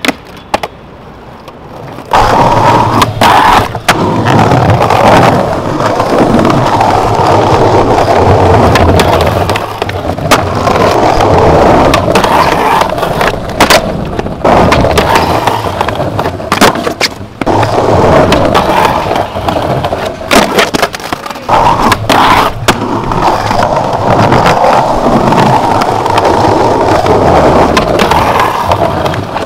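Skateboard wheels rolling loudly over stone paving, broken by many sharp clacks as the board pops, lands and slaps down during trick attempts. The rolling starts about two seconds in; before that only a few clicks are heard.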